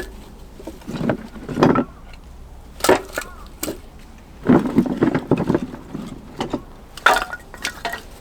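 Firewood knocking and clattering in a series of irregular sharp strikes, with a busier cluster of knocks around the middle.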